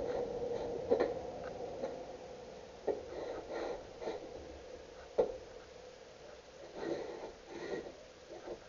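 Hand plane being pushed along a wooden board in rasping strokes, with sharp knocks about one, three and five seconds in.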